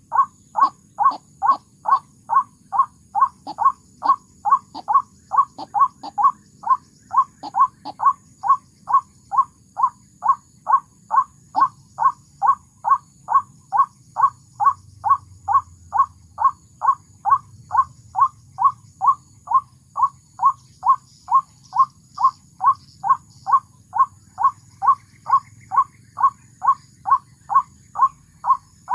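White-breasted waterhen (ruak-ruak) call: one short falling note repeated very evenly, about twice a second, without a break. It serves as the lure call for trapping waterhens. Faint chirps of other small birds sit behind it.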